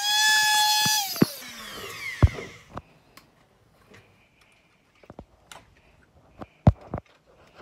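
Handheld rotary tool running with a steady high whine, switched off about a second in and spinning down with a falling pitch. Then scattered taps and clicks on the wooden workbench, with two sharp knocks.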